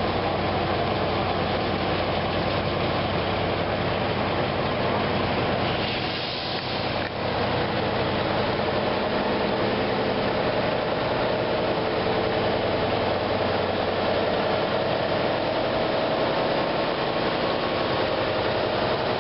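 Fire truck engines running steadily as a procession of fire engines, among them a three-axle Tatra tanker, drives slowly past. The sound dips briefly about six seconds in.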